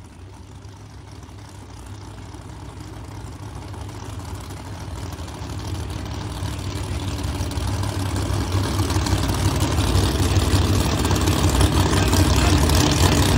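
Mustang drag car's engine idling low and steady as the car rolls back toward the starting line, growing steadily louder as it comes closer.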